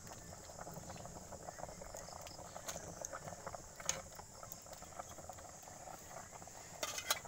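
Firewood crackling under a cooking pot, with scattered small snaps over a steady high chirring of insects. A quick run of louder clicks comes near the end.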